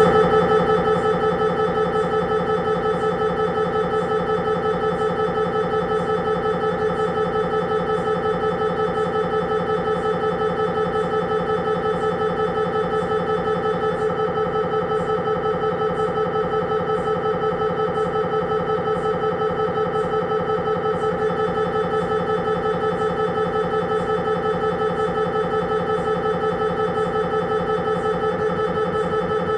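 Siemens Magnetom Avanto 1.5 T MRI scanner's gradient coils running an imaging sequence: a steady, loud buzzing tone made of rapid, even pulses.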